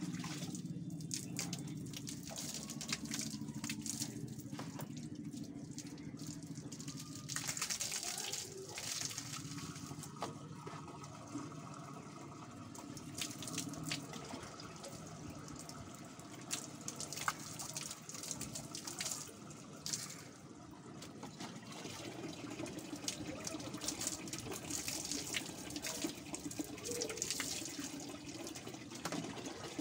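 Water sloshing and splashing in a plastic tub as long wet hair is rinsed by hand, with water poured from a plastic mug over the hair near the end.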